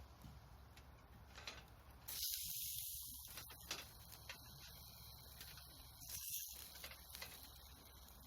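Steak sizzling on a grill net over a campfire: a hissing surge about two seconds in that lasts about a second, another shorter one near six seconds, with small crackles between.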